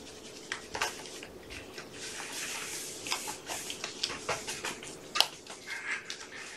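Kittens tussling in a round scratcher bed: claws scratching and rustling against it, with scattered light taps and clicks. The sharpest tap comes about five seconds in.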